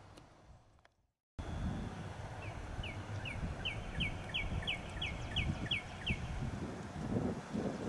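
A songbird repeating one down-slurred whistled note about a dozen times, roughly three a second, over a steady low outdoor rumble. The sound drops out briefly about a second in, and there are soft thumps near the end.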